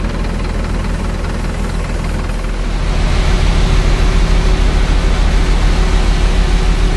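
The diesel engine of a 2001 Mercedes-Benz 1218 Atego truck idling steadily. About three seconds in the sound grows louder, and a steady rushing noise joins the hum.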